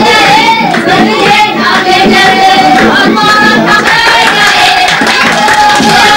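Ethiopian wedding song: voices singing over music, with hand clapping keeping the beat.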